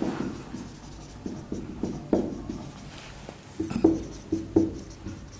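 Marker writing on a whiteboard: irregular short strokes and taps of the tip against the board, with a few brief squeaks in the second half.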